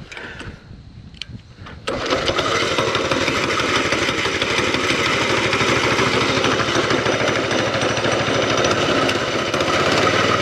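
Coleman CT200U mini bike's 196cc single-cylinder four-stroke engine starting: a few light clicks, then it catches suddenly about two seconds in and runs steadily.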